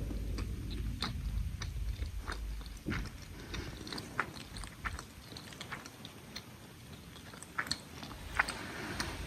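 Someone biting and chewing crunchy food close to the microphone, giving irregular crisp crunches a few times a second.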